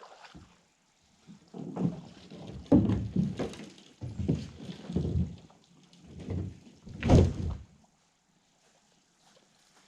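A run of about six dull thumps and knocks over several seconds, the loudest two near the middle and near the end, then they stop.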